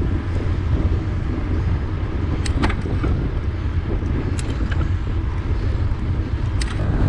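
Wind buffeting the microphone of a handlebar-mounted camera on a moving bicycle: a steady low rumble, with a few short clicks and knocks from the bike in the middle of it.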